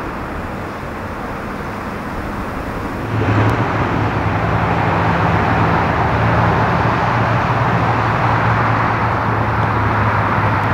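A vehicle engine running at a steady speed amid street traffic noise, growing louder about three seconds in and easing off at the end.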